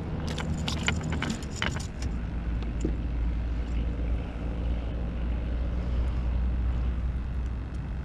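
Small clicks and rattles of a fishing rig being handled as a hook is worked out of a speckled trout's mouth, then from about two seconds in a steady low engine drone.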